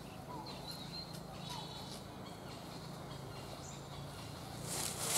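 Outdoor ambience with a steady low hum and a few faint high chirps, then loud rustling of dry leaves and grass starting near the end.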